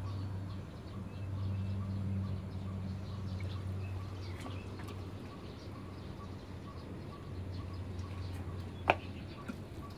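Steady low hum with faint, evenly repeated chirps, and a single sharp click about nine seconds in.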